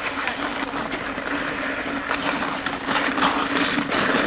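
Ice hockey skates scraping and carving on outdoor pond ice, with many sharp clacks of hockey sticks hitting each other and the puck as players scrum for it. A steady low hum runs underneath.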